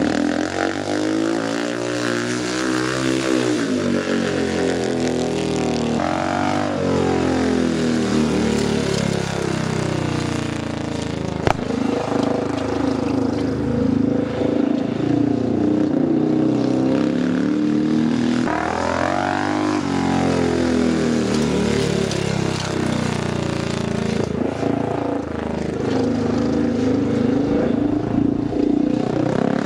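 A speedway motorcycle's 500 cc single-cylinder engine running hard as it laps a dirt oval, its pitch rising and falling over and over. There is one sharp click about eleven seconds in.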